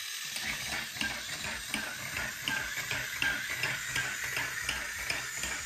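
Battery-powered Alpha 2060 toy robot dog walking: its tiny electric motor whirs steadily while the mechanism clicks in an even rhythm, about three clicks a second.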